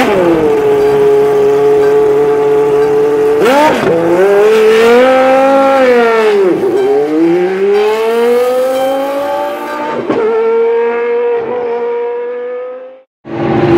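Race car engine running at high revs: it holds steady, then the revs rise and fall, dip about midway and climb again in a long rise, with a couple of sharp breaks, before it cuts off suddenly near the end.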